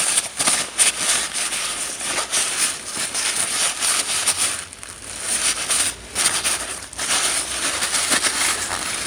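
Paper towel rubbing and crinkling against a Mercedes M272 EGR valve as it is wiped down with carburettor cleaner, in uneven scrubbing strokes with a couple of short pauses.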